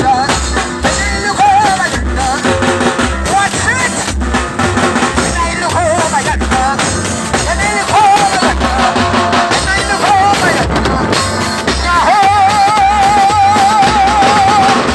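Live band music played loud on a drum kit and keyboard: a steady deep bass-drum beat with snare hits under a wavering lead melody, which holds one long wavering note near the end.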